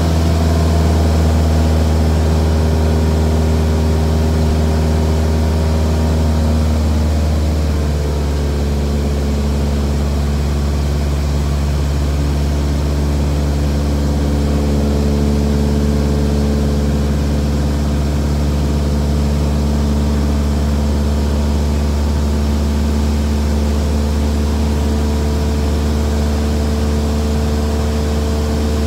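Single-engine light aircraft's piston engine and propeller droning steadily, heard inside the cabin. The engine note dips slightly about eight seconds in and creeps back up a little near the end.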